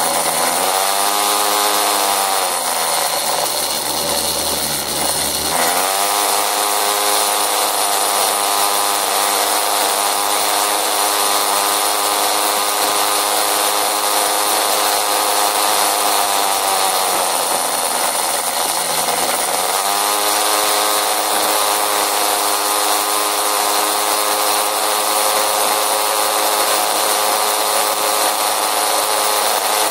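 Small motor scooter engine running while riding, with a buzzy, saw-like drone. Its pitch drops as the scooter eases off about a second in and again around eighteen seconds in, then rises as it picks up speed again a few seconds later each time.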